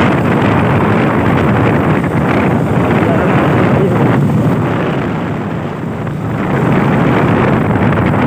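Wind buffeting the microphone as it moves forward, a loud steady rumble that eases briefly about six seconds in.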